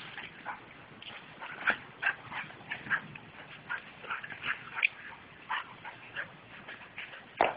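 Dog making short, high sounds in quick, irregular succession during rough play, with one louder, sharp sound near the end.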